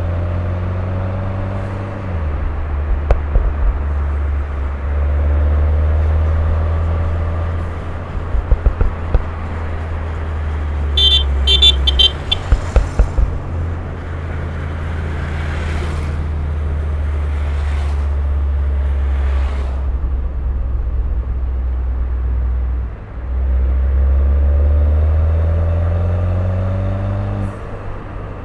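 Turbocharged Mini Cooper's engine and sports exhaust, accelerating repeatedly with rising revs between shifts. There are crackling bursts of exhaust pops about a third of the way in and again near the middle, where a short car-horn toot also sounds.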